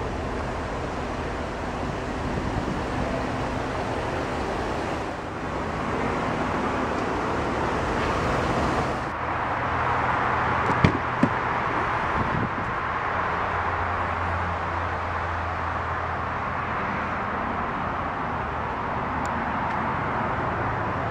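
Steady outdoor traffic rumble and hiss, with two sharp clicks a little past halfway, about half a second apart, fitting the Tahoe's rear door latch being opened.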